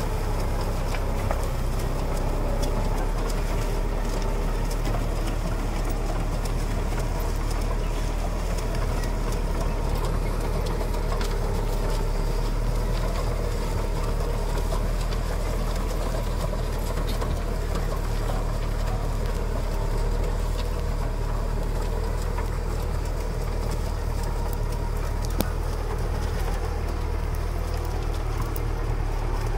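The engine of a 100-horsepower four-wheel-drive Thale Thong tractor running steadily with a low, even drone.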